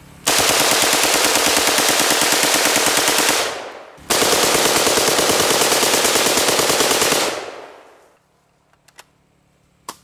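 Full-auto AK-47 in 7.62×39 mm firing two long bursts of about three seconds each, the second starting half a second after the first dies away, then falling silent.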